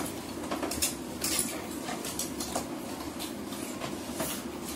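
Chopsticks and utensils clicking now and then against bowls and plates during a meal, over a steady low hum.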